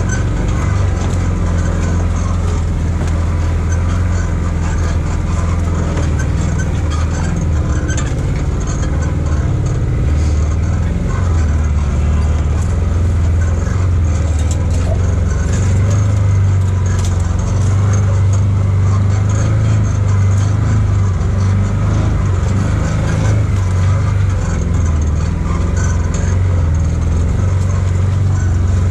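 Side-by-side UTV engine running steadily while driving a rough bush trail, a low drone whose pitch rises and falls a little with the throttle, with scattered light clicks and rattles from the machine over the ground.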